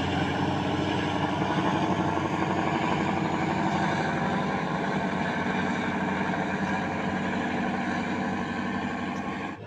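Passenger ship's engines running with a steady drone that holds level throughout and cuts off abruptly at the end.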